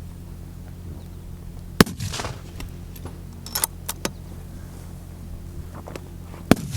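Two rifle shots from fullbore target rifles, about two seconds in and again near the end, each sharp and loud with a short echo. Between them come a few light metallic clicks.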